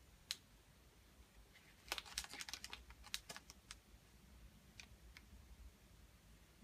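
Faint, light clicks: a single click just after the start, a quick run of about a dozen ticking clicks from about two to three and a half seconds in, then two faint clicks near five seconds.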